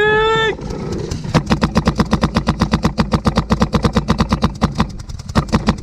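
A short yell at the start, then a paintball marker firing a rapid stream of shots, about ten a second for some four seconds.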